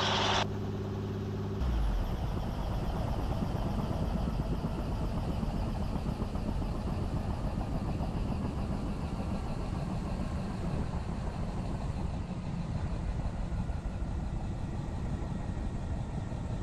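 Helicopter running at idle for its cool-down before shutdown. A steady hum turns to a rougher, noisier rumble about a second and a half in.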